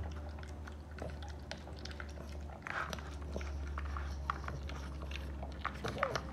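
Puppy eating soft ground meat from a plastic bowl: wet chewing and smacking with many quick clicks of teeth and bowl, over a low steady hum.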